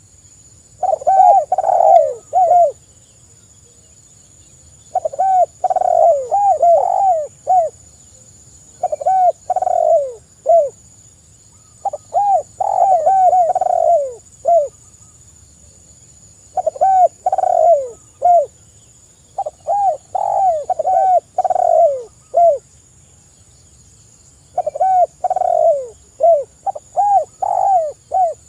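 Spotted dove cooing: a phrase of several arching coos every three to five seconds, with short pauses between.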